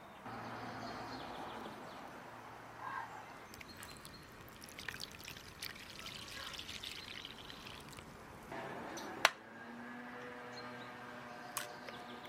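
Water poured in a steady stream into a well of flour in a wooden bowl, splashing into the pool that collects there. There is a single sharp knock about nine seconds in.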